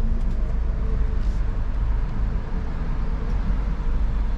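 Steady low rumble of a car on the move, with a faint steady hum above it.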